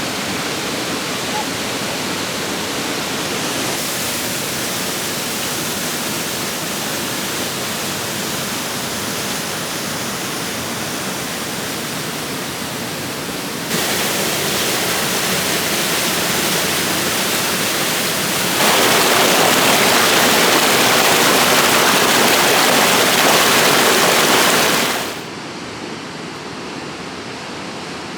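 Waterfall rushing with a steady roar of water. Its loudness jumps up or down abruptly several times: louder about fourteen and nineteen seconds in, then quieter again near the end.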